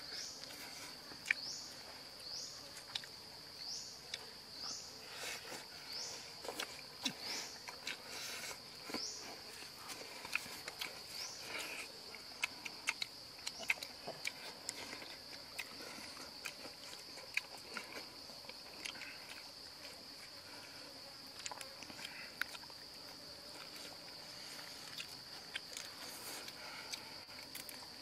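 Steady high-pitched insect drone from the forest, with a run of short rising chirps about once a second for the first ten seconds or so. Scattered small clicks and crunches from handling and eating food run through it.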